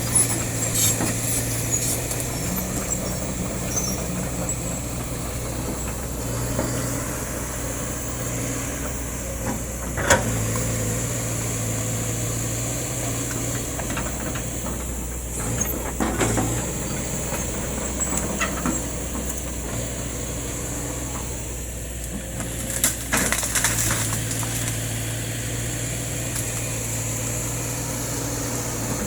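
Kobelco excavator's diesel engine running steadily, with a few sharp knocks about a third, halfway and three-quarters of the way through.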